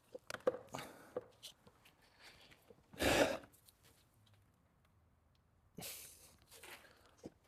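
Scattered light clicks and scrapes of hands and tools working on plastic radiator fittings, with one short loud rushing noise about three seconds in and a weaker one near six seconds.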